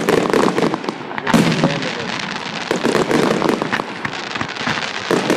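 Fireworks display: aerial shells bursting, with a sharp bang at the start and another about a second in, followed by a dense run of crackling and popping from the shells' crackle stars.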